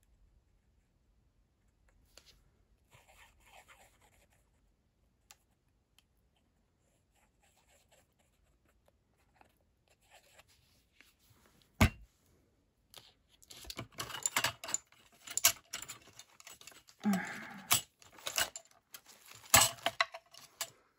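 Craft supplies being handled and moved about on a craft mat: faint rustling at first, a single sharp tap about twelve seconds in, then a run of clicks, clacks and rustling of clear plastic stamp packets, loudest near the end.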